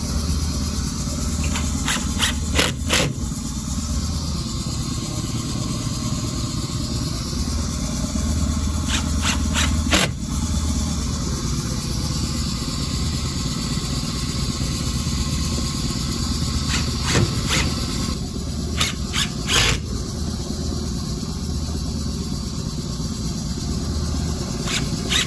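Steady low machine hum, with scattered sharp knocks and clicks in small clusters from hands-on work on a hollow metal door frame.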